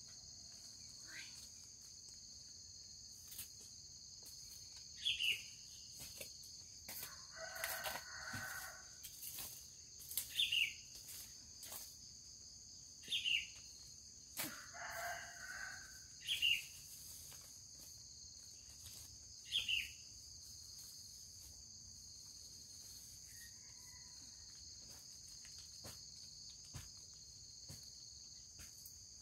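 A rooster crowing twice, and a bird giving short sharp descending calls about every three seconds, over a steady high insect drone. Scattered faint clicks run through it.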